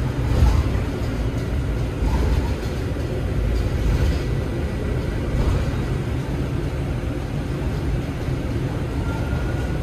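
Steady low rumble of a moving vehicle heard from inside its cabin: engine and road noise.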